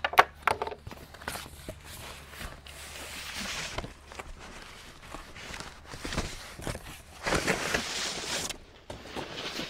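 Cardboard shipping box being opened: a blade slicing through the packing tape and the flaps scraping and tearing open, with a sharp click just at the start and two longer stretches of scraping.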